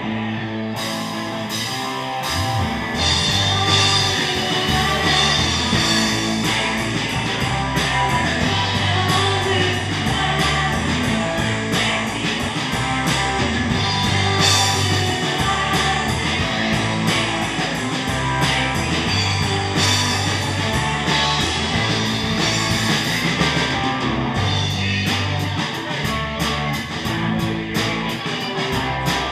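A live rock band playing through PA speakers: electric guitar, bass and drums with a steady beat, and a singer.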